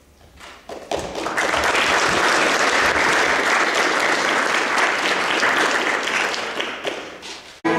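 A crowd of guests applauding: a few scattered claps build within a second into full applause, which holds steady, fades slightly and stops abruptly near the end.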